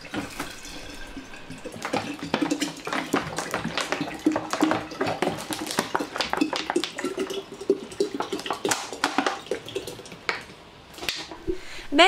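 Drinking water glugging and splashing out of an upturned plastic bottle into a large glass jar of crushed grapes, filling the jar to cover the grape mash for vinegar.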